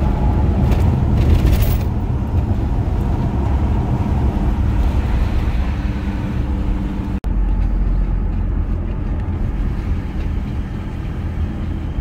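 Car driving, heard from inside the cabin: steady engine hum and road rumble. The sound cuts out for an instant about seven seconds in.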